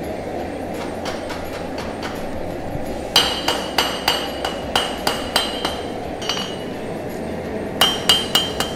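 Hand hammer striking a hot 1095 steel knife blank on an anvil, each blow with a ringing clink. About nine blows come at roughly three to four a second from about three seconds in, then a pause, then about five quicker blows near the end, all over a steady background rumble.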